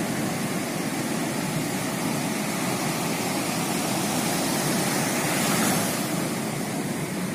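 Ocean surf breaking on the shore: a steady rush of waves that swells slightly about five seconds in.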